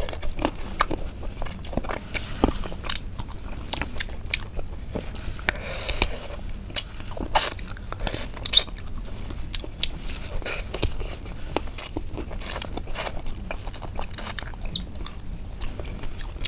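Crispy fried spiced duck heads being bitten and chewed close to the microphone: irregular sharp crunches and crackles of the crisp bone and meat, with chewing in between.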